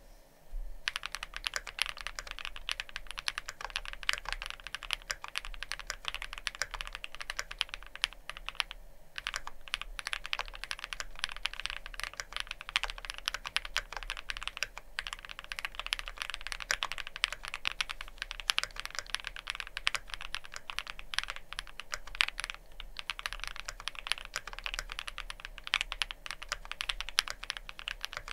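Continuous typing on a Freya Ultra custom mechanical keyboard with factory-lubed Cupid linear switches and GMK keycaps: a fast, steady stream of key clacks starting about a second in, with a few short pauses.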